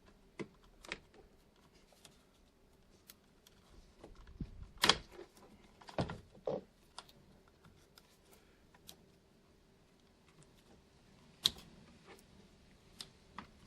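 Scattered plastic clicks and snaps as the old power window and door lock switch bezel is pried out of the truck's door panel and its switches unplugged, with a few louder knocks about five, six and eleven seconds in.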